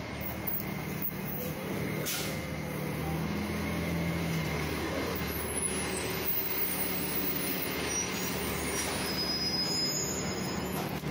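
City bus engine running close by, a steady low drone amid street traffic noise, with a short hiss about two seconds in.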